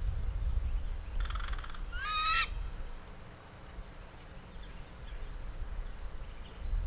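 A crow calling off-camera: one hoarse caw about a second in, followed at once by a short, higher call that bends up and down. A steady low rumble runs underneath.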